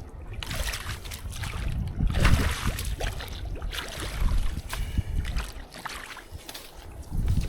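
Water splashing and sloshing in uneven bursts as floodwater from a beaver blockage is worked loose and starts to flow better.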